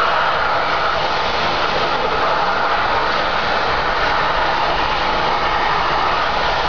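Steady rushing noise of high-pressure gas jetting out of an oil well on a drilling rig in an uncontrolled blowout, holding an even level throughout.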